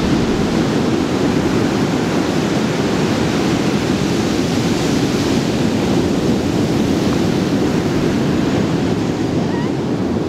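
Ocean surf breaking on a sandy beach, a steady rush of waves with some wind on the microphone.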